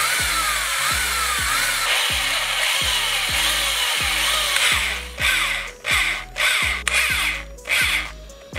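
Cordless drill with a thin bit drilling line-tie holes into a wooden lure body. It runs steadily for about the first four and a half seconds, then in short bursts roughly every half second. Background music with a steady beat plays underneath.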